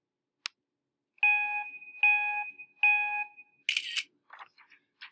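A click, then Mac Photo Booth's countdown: three short beeps a little under a second apart, followed by the simulated camera shutter sound as the picture is taken, and a few faint clicks.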